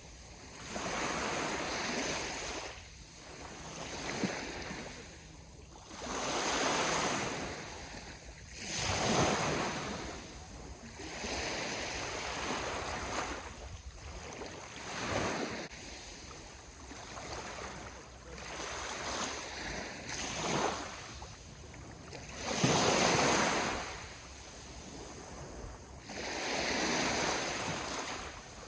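Sea waves breaking and washing up a shore: surges of surf that swell and fall back every two to four seconds, the loudest about nine and twenty-three seconds in.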